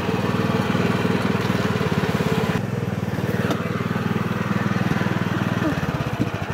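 Small river boat's motor running steadily with a fast, even pulse. Near the end it throttles back and the beat slows.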